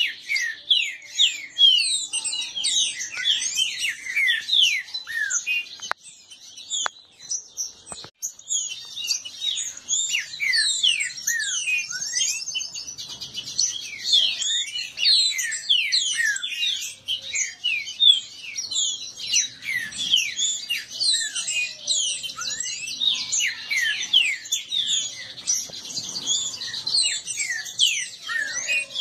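Caged green-winged saltators (trinca-ferro) singing against each other in a song contest: fast, overlapping phrases of short, sharp descending whistles, with a brief lull about six to eight seconds in.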